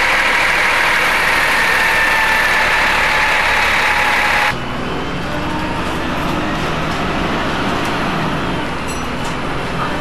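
Transbus Trident III bus with a Cummins ISMe 10.8-litre diesel running. It starts as a loud, steady hiss with a faint whine, heard at the rear of the bus. About four and a half seconds in, a sudden cut leads to a quieter, lower engine hum.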